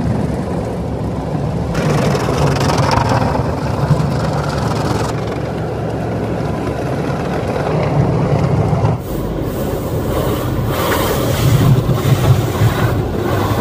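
Automatic tunnel car wash heard from inside the car's cabin: water spraying and brushes scrubbing over the windshield and body, over a low rumble of the wash machinery. The sound changes abruptly a few times.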